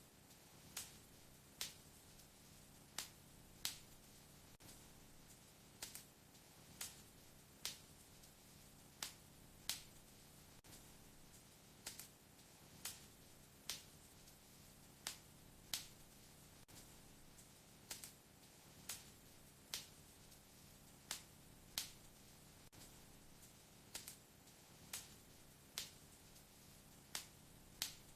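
Wood fire crackling in a fireplace: sharp pops of burning wood, about one a second, over a faint low rumble.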